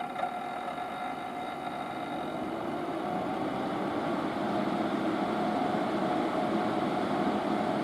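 Fan in a VP-1000 unit running up: a steady whir with a clear tone, slowly growing louder. The owner reports an abnormal noise from this unit around fan start-up.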